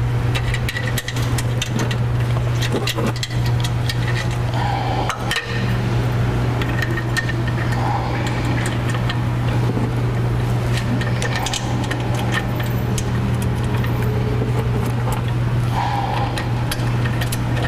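Small metallic clicks and taps of bolts going into the mesh covers on a steel bumper, scattered irregularly over a steady low hum.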